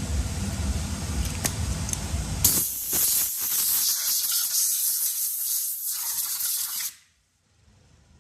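A low steady rumble, then about two and a half seconds in a loud spraying hiss starts and runs for about four seconds before cutting off suddenly: a spray used to clean the sanded wheel before paint.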